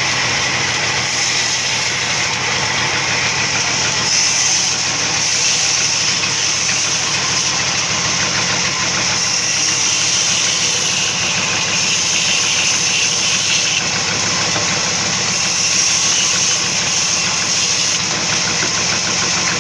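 Sawmill machinery running steadily: a continuous mechanical drone with a strong high hiss over it.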